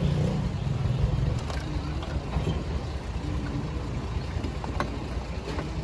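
An engine running steadily with a low rumble, a little louder in the first second or so.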